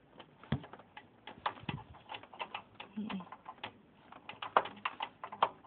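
Irregular clicks and light knocks of hands handling parts inside an open desktop computer case, metal and plastic tapping together.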